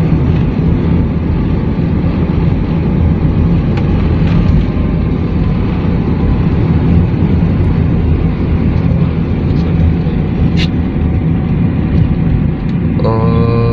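Car driving along a paved road, heard from inside the cabin: a steady engine hum under continuous tyre and road noise.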